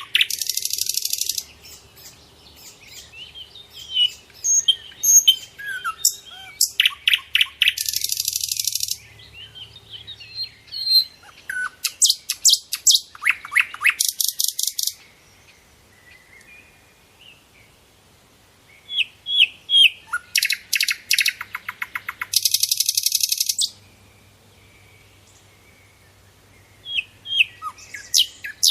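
Small pet birds chirping and twittering: rapid runs of high-pitched chirps broken by harsh buzzy trills about a second long, with a couple of quieter pauses.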